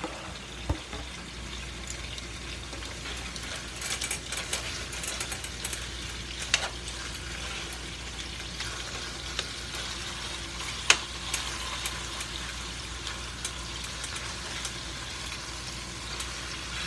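Rabbit pieces sizzling as they are sautéed in butter in a pot on high heat: a steady crackling hiss. Now and then the tongs tap or scrape against the pot, the sharpest click about eleven seconds in.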